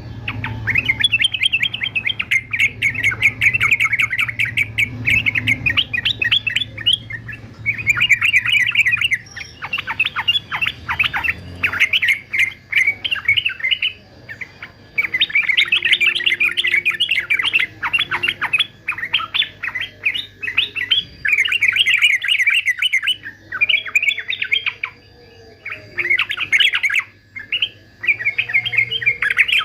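Male yellow-vented bulbul (trucukan) singing a fast, dense chattering song in the excited 'fighter' style, in bursts of a few seconds broken by short pauses. A faint steady hum lies underneath.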